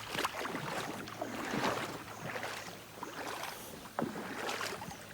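Irregular footsteps and rustling of someone walking on a trail, a run of uneven swishes and crunches.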